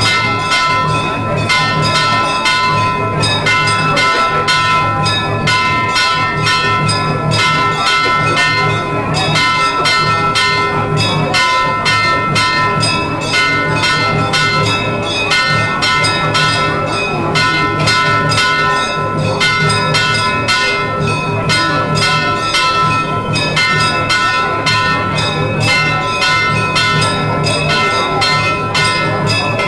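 Temple bells ringing in rapid, continuous strikes during puja, over a low pulsing beat.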